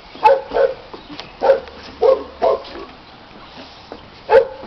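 A dog barking in play: five short barks in the first two and a half seconds, then one more near the end.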